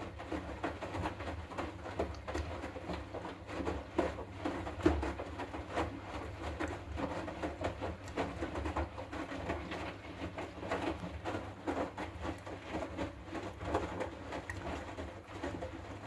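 Hoover front-loading washing machine in its final rinse: the drum turning the wet laundry through the rinse water, with irregular sloshing and soft thuds over a steady low motor hum.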